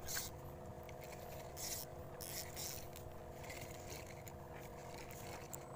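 Handling noise: several short rustles and scrapes of clothing or gear rubbing against the microphone as the camera is moved, over a steady low hum.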